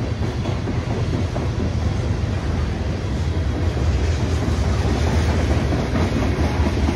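BNSF freight train passing: a steady, loud rolling noise, heaviest in the low end.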